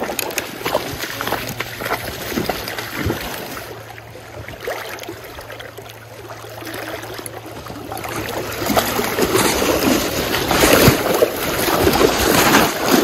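Water splashing and sloshing as a hooked king salmon thrashes in a landing net, with short knocks of net and gear. The splashing grows louder and busier over the last few seconds.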